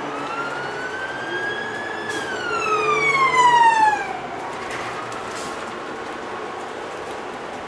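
Emergency vehicle siren heard from inside a bus, one wail cycle. The tone climbs slowly for about two seconds, then slides down over the next two seconds, loudest as it falls, before fading under the bus's steady running noise.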